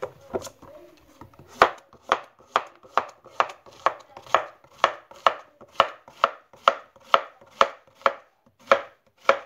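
Kitchen knife slicing a zucchini into rounds on a plastic cutting board, each cut ending in a sharp knock on the board, in a steady rhythm of about two cuts a second.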